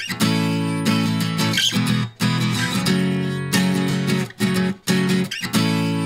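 Background music led by strummed guitar chords, with short clean breaks between the phrases.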